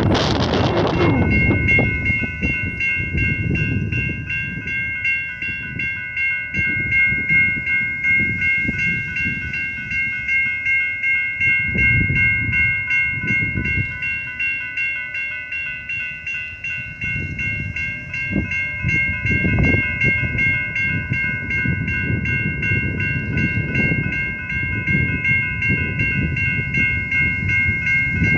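Amtrak passenger train rolling past, its wheels rumbling and clattering on the rails, with a loud rush of noise right at the start. Steady high ringing tones are held over it the whole time.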